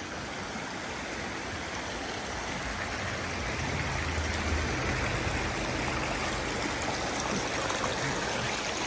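Shallow creek flowing over rocks and fallen branches, a steady rushing of water that grows gradually louder as the microphone nears the riffles.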